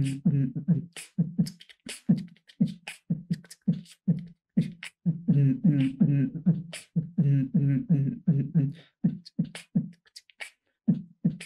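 A man beatboxing: a quick, even rhythm of sharp mouth clicks and hissing snare-like hits over short low hummed bass notes.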